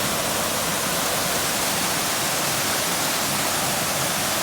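Tangyo Falls pouring: a steady, even rush of falling water.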